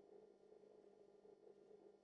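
Near silence: a very faint, steady low hum with a couple of held tones.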